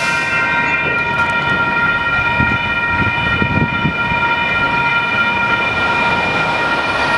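Union Pacific auto-rack freight train rolling past with a low rumble, over which a steady high tone of several pitches sounds throughout without change.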